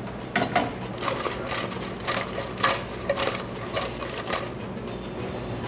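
Fried fish pieces tossed in a stainless steel mixing bowl, rattling and knocking against the metal in a quick, uneven run of clatters that stops about four and a half seconds in.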